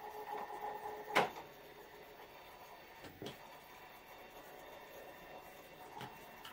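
Stepper motor turning a 3D-printed rotary plate slowly through a printed gear: a steady whine that stops with a sharp click about a second in. A few soft knocks follow, two close together around three seconds in and a faint one near the end.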